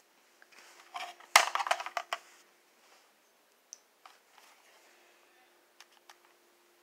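Hard plastic toy pistol being picked up and handled: a burst of clattering and rustling about a second in, with one sharp click the loudest, then a few light clicks.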